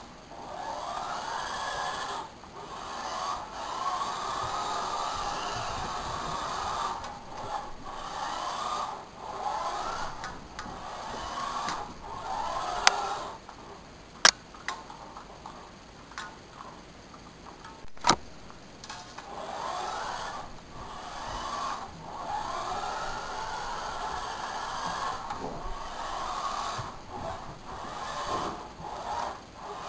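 Small electric motor of a toy remote-control car whirring in stretches of a few seconds as it is driven in bursts, with a few sharp knocks in the middle.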